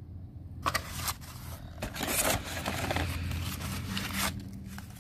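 Paper wrapping and cardboard cartons rustling and crinkling as small glass balls are unwrapped and handled, with a few sharp clicks.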